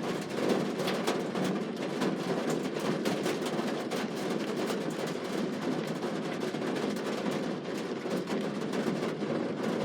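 Heavy rain falling steadily, with many close drops tapping on a hard surface.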